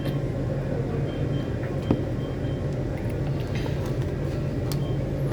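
Steady low hum with a few faint clicks and one short knock about two seconds in.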